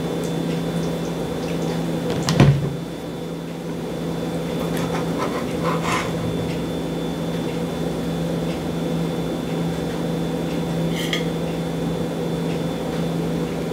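A steady machine hum holding one pitch throughout, with a single sharp knock about two and a half seconds in and a few light clinks of dishes and utensils later on.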